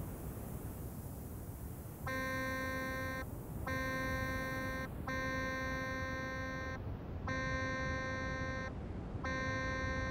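Dexed FM software synthesizer playing middle C five times, one steady held note per breath, each starting and cutting off cleanly with short gaps between. Each note is switched on and off by breath on an Arduino air-pressure sensor, now sending one note-on and one note-off per breath.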